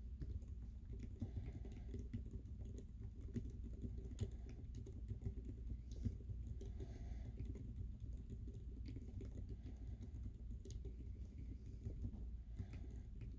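Continuous typing on an SP50 mechanical keyboard with lubed Zeal Healios silent linear switches and MDA-profile Big Bang keycaps: a steady, quick run of quiet key presses.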